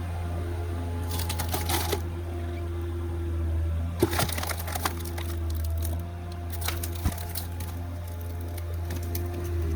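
Caterpillar 247B3 compact track loader's diesel engine running steadily under hydraulic load, with wood cracking and popping in several bursts, about one, four and seven seconds in, as the skid-steer splitter drives a log through its six-way wedge.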